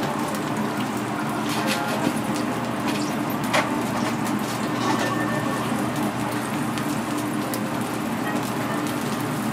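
Steady restaurant room noise, a hiss over a low hum, with a few light clicks scattered through it.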